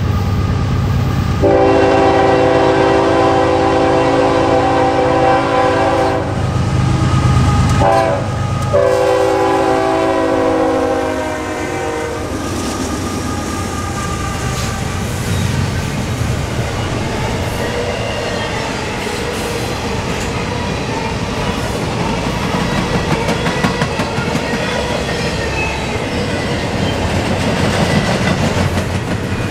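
Norfolk Southern GE ES44AC diesel locomotive passing and sounding its horn: a long chord, then a short blast and another long one, the pattern of a grade-crossing signal, over the rumble of its engine. After about twelve seconds the horn stops and the intermodal container cars roll by with steady wheel clatter on the rails.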